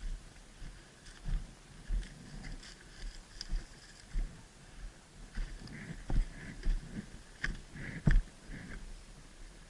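Footsteps at a walking pace, a dull thump roughly every two-thirds of a second, with light rustling and small knocks of gear.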